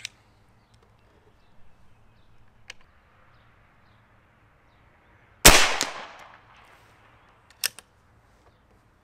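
A single shot from a Seneca Dragon Claw .50-caliber big-bore PCP air rifle about five and a half seconds in: a sharp report that dies away over about a second. About two seconds later comes a sharp click as the bolt is worked.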